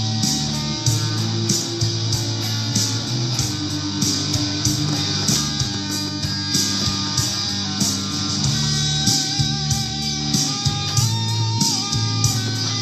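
Electric guitar, a 2005 Gibson Supreme, playing along with a backing band of drums and bass at a steady beat; from about eight seconds in a held lead melody with bent notes comes through.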